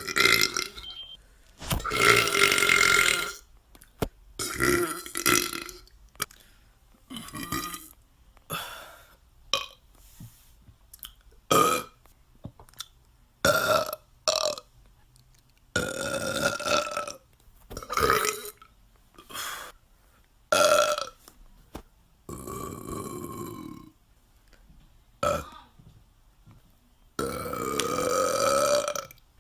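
A string of loud belches by different people, about a dozen in a row, some short and some drawn out for a second or two.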